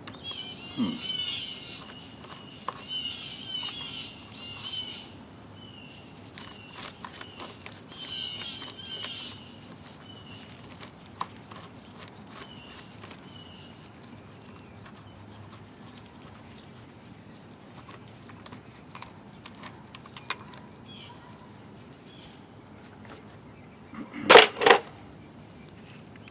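Small metal clicks and clinks of a wrench working the nut on a pulley installer's threaded rod, pressing the drive pulley onto a power steering pump shaft. Two loud sharp knocks come near the end.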